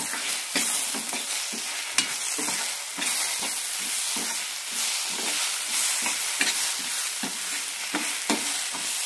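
A steel spoon stirring and scraping a dry semolina and moong dal mixture around a stainless steel pan, about two scrapes a second, over a steady frying hiss from the ghee and oil in the pan.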